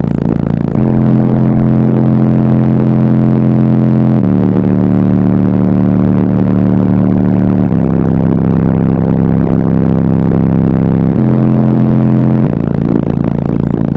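Bass-heavy music played very loud through four Bassface 15-inch subwoofers inside a car cabin: sustained deep bass notes that step to a new pitch every few seconds, strong enough to shake the interior mirror.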